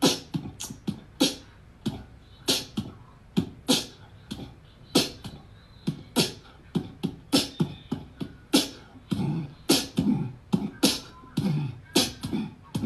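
Irregular series of sharp clicks and taps, about two or three a second, some with a dull low thud beneath them.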